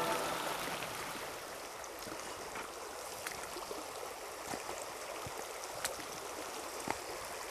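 Small shallow river flowing over a rocky riffle: a steady rush of running water, with a few faint ticks.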